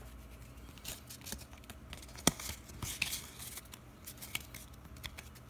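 Pokémon trading cards and a foil booster wrapper being handled: light rustling and scattered clicks of cards, with one sharp snap about two seconds in.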